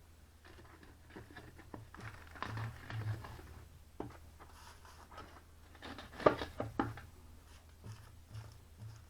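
Light clicks, taps and knocks of small items being handled on a workbench, with one sharper knock about six seconds in, over a steady low hum.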